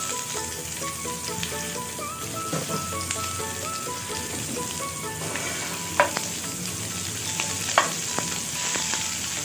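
Chopped onion sizzling steadily as it fries in hot oil in a nonstick pan, stirred with a spatula. Two sharp knocks come about six and eight seconds in.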